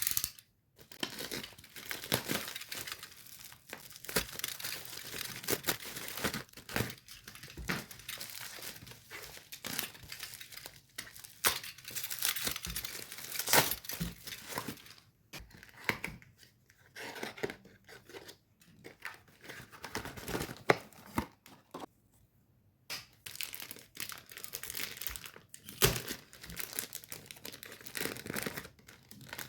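Packaging being torn open and crinkled by hand during an unboxing: irregular crackling and rustling of wrap and box, with one short pause about three-quarters of the way through.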